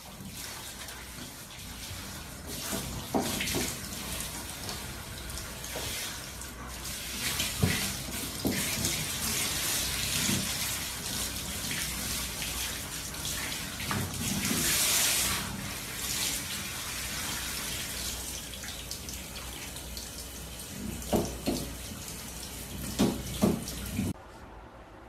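Handheld shower spraying water over a dog being bathed: a steady rush of running water with a few short louder spikes, cutting off suddenly near the end.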